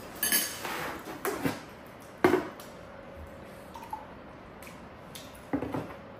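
Tableware being handled: a spoon scraping and clinking in a ceramic bowl, then short knocks of ceramic mugs and a plastic water jug on the table. The loudest is a sharp knock about two seconds in, and another comes near the end.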